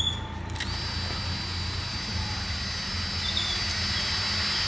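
Brushless motors of a small FPV freestyle quadcopter spinning up at idle while it sits on the ground. A steady, high whine of several close tones starts just under a second in, over a low steady hum.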